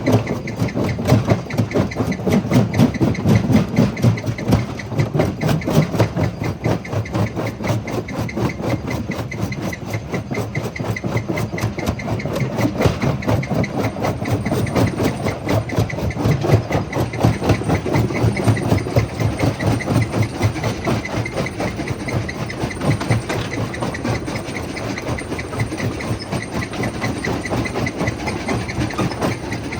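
Jaw crusher running, a steady rumble with a rapid, even pulsing beat.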